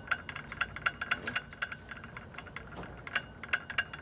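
Rapid, irregular light clinking of glass, several clicks a second, each with the same short high ring.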